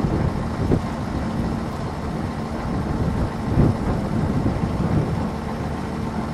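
Wind buffeting the microphone: a low, gusty rumble that swells and falls irregularly, with a faint steady hum underneath.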